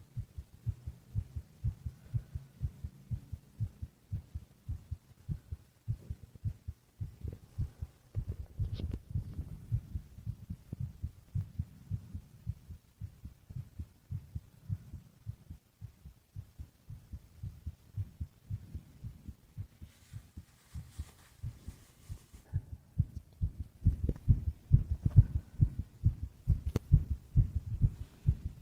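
Human heartbeat: a steady rhythm of low thumps, louder in the last few seconds.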